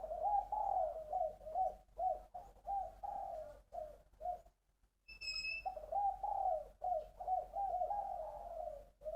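Spotted dove cooing in repeated phrases of short, low notes. The cooing breaks off for under a second around the middle, a brief high chirp follows, and then the cooing resumes.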